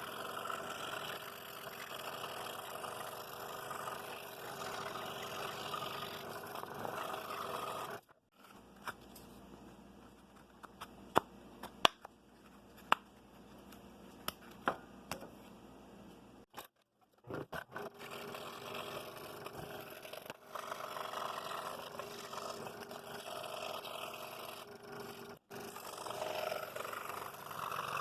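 Scroll saw with a number 5 reverse-tooth blade cutting a hardwood board, a steady buzz of blade and motor. A little over a quarter of the way in it stops for about nine seconds, leaving a few sharp clicks, then starts cutting again.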